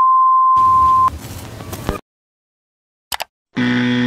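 TV test-pattern beep: one steady high tone lasting about a second, joined by static hiss that runs on briefly after the tone stops. After a short silence comes a click, then near the end a low buzzing tone begins.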